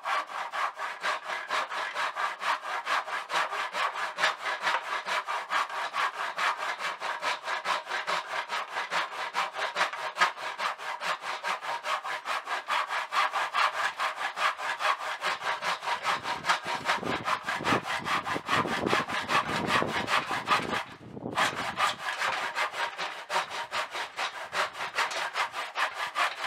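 Hand saw cutting through a wooden board in a plastic miter box, steady back-and-forth strokes at a brisk, even rhythm. For a few seconds past the middle the strokes get heavier and deeper; the sawing then stops for a moment and picks up again.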